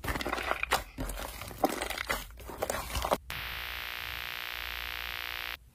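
Hands pressing and squishing a soft, foamy whipped-cream slime, with a run of small, irregular crackles and squishes. About three seconds in this gives way to a steady TV-static hiss, which cuts off abruptly near the end.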